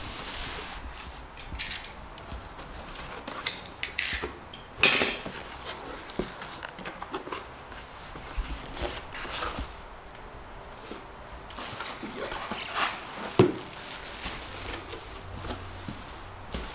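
Unboxing handling noise: a cardboard carton and its packing being opened, with scrapes and rustles of cardboard, foam and plastic wrap as the packed rice cooker is lifted out. There are scattered short knocks, a loud scraping burst about five seconds in, and the sharpest knock about 13 seconds in.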